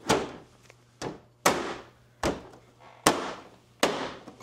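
Six sharp knocks, irregularly spaced less than a second apart, each with a short ringing decay; the first is the loudest. A faint steady low hum sits underneath.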